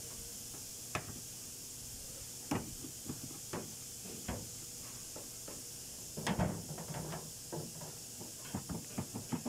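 Scattered clicks and knocks of hand tools working the windshield wiper pivot on the cowl, with a cluster of knocks about six seconds in and a quicker run of clicks near the end, over a steady hiss.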